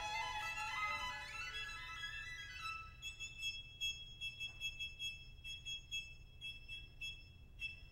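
Background music led by a violin: a flowing melody with sliding notes, then from about three seconds in a quieter passage of short, rapid high notes.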